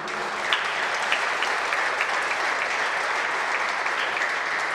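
Crowd applauding: a steady patter of many people clapping, with a few single claps standing out above it.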